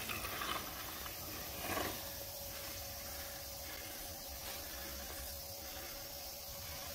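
Mountain bike tyres rushing and scuffing over loose dirt as the bike passes close by, loudest in the first two seconds, then fading into a steady hiss as it rides off.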